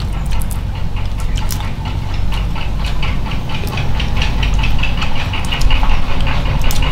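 Fried water beetle shells crackling and snapping as they are pulled apart by hand and crunched while chewing: many sharp little cracks over a steady low rumble.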